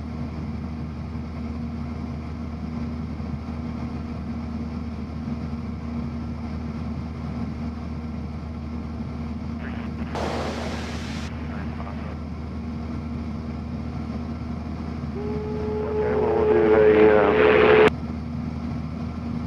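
Cessna 172's four-cylinder piston engine and propeller droning steadily, heard in the cabin in level cruise. About ten seconds in there is a brief rush of static, and near the end a radio transmission with a steady tone grows louder and cuts off suddenly.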